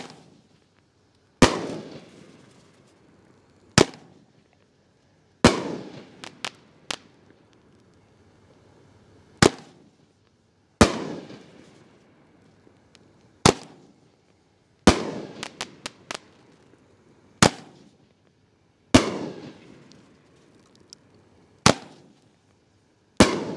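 Consumer aerial firework cake firing shot after shot: about eleven sharp bangs roughly every one and a half to two and a half seconds, each trailing off in a long echo, with a few smaller quick pops after some of the bangs.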